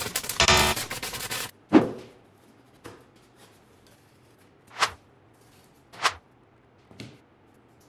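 A dense rattling scrape lasting about a second and a half, then a single knock, then three short, separate slaps about a second apart as flat cardboard sheets are dropped and laid on a wooden tabletop.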